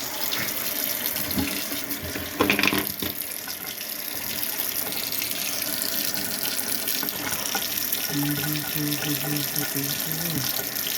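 Tap water running steadily into a sink, with a short louder sound about two and a half seconds in.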